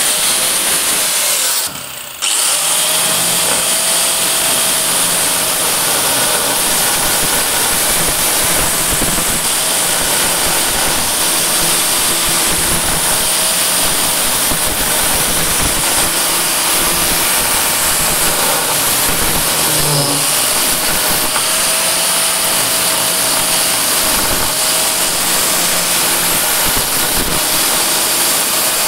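Angle grinder with a hole-cutting bit boring into a black stone slab, water poured on the cut to cool it: a loud, steady grinding noise, with a brief dip about two seconds in.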